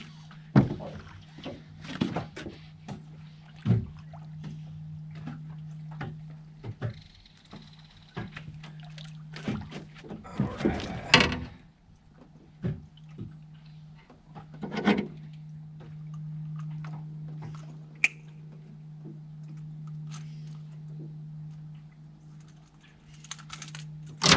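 A largemouth bass being fought to the boat and landed by hand: scattered knocks and thumps on the boat, with a burst of splashing about ten seconds in and another about fifteen seconds in. A steady low hum runs underneath throughout.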